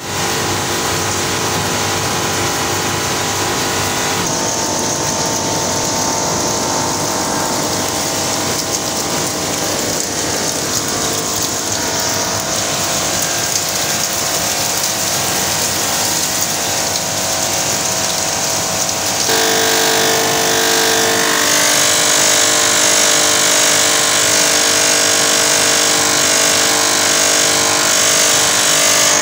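Steady machinery noise from a corn-snack production line: motors and conveyors running, with a constant hum of several steady tones under a hiss. The sound shifts about four seconds in and grows a little louder about two-thirds of the way through as different machines come close.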